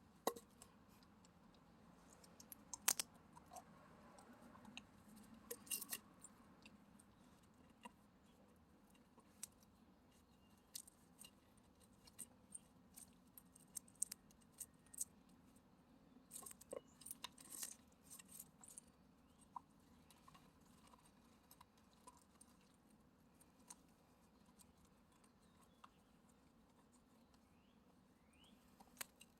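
A dog gnawing on a piece of wood: faint, irregular crunches, snaps and clicks of teeth on wood, in clusters with pauses between.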